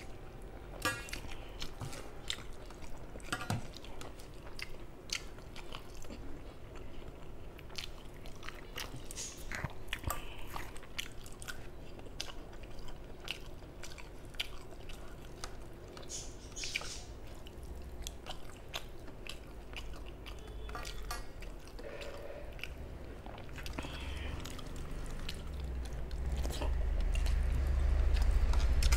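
Close-miked chewing and mouth sounds of a person eating by hand, with many short wet clicks. From about two thirds of the way in, a low rumble grows and becomes the loudest sound near the end.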